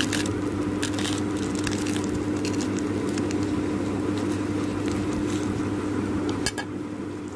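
Knife cutting through the crisp cornflake crust of a shallow-fried sandwich, giving a scattered series of short dry crunches and crackles over a steady low hum.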